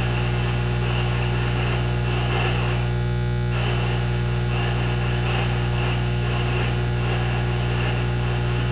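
Steady electrical mains hum with a buzzy edge, and faint irregular rustling above it that drops out briefly about three seconds in.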